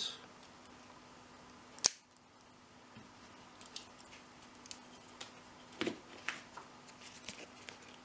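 A single sharp metallic click about two seconds in, as the brass padlock's shackle is snapped shut, followed by faint scattered clicks and rustling from small handling of the lock and keys.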